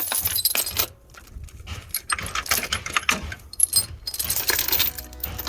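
Metal tools and hardware clinking and rattling in quick, irregular runs, with a short lull about a second in.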